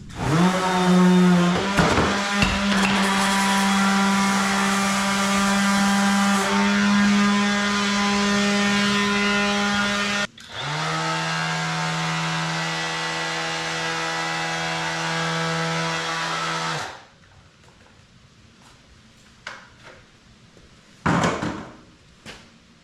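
DEWALT 20V MAX cordless random orbital sander (DCW210) spinning up and running with a steady motor whine. It cuts off about ten seconds in and starts again at a slightly lower pitch, as at a lower speed setting. It runs until near the end, then stops; after that come a few knocks, one of them loud.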